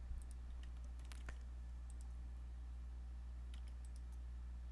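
Faint, scattered clicks of a computer mouse, about half a dozen spread irregularly, over a steady low hum.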